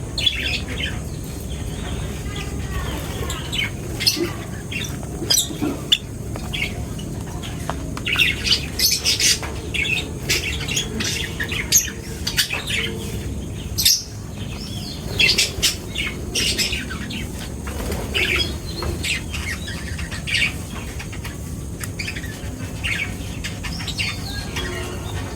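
A flock of birds chirping and squawking in many short, quick calls, some louder and sharper than others, over a steady low background hum.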